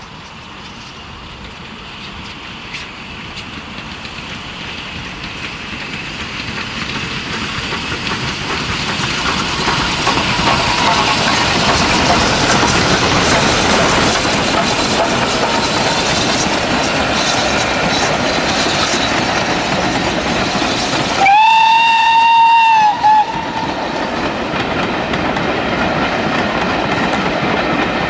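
Steam locomotive and train getting steadily louder over about ten seconds as it approaches, then running past. About three quarters of the way through, the locomotive's whistle sounds once for about two seconds, with a brief second toot just after.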